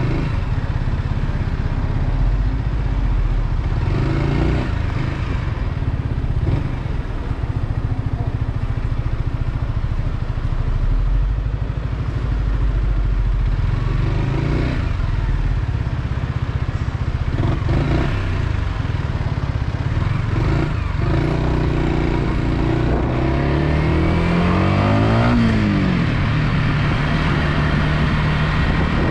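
Yamaha XSR125's single-cylinder four-stroke engine running steadily while riding. Near the end its pitch rises and then falls.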